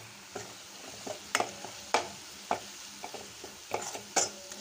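Steel spoon stirring onions and spice powders in a stainless steel kadai, with irregular clinks and scrapes of the spoon on the pan over a faint sizzle of frying.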